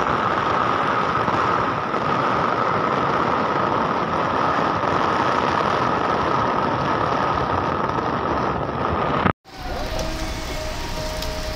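Heavy rain pouring down in a dense, steady hiss. It cuts off abruptly about nine seconds in and gives way to lighter rain with a steady hum.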